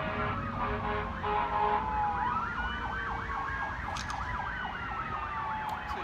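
Emergency-vehicle sirens sounding together: a slow falling wail, joined about two seconds in by a fast yelp of about three sweeps a second, over a steady low rumble.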